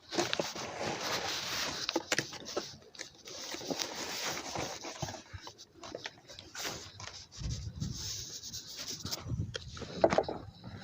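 Scraping and rubbing of hand work at a wheel hub's mounting bore while grease is applied, with scattered small clicks and one sharp knock near the end.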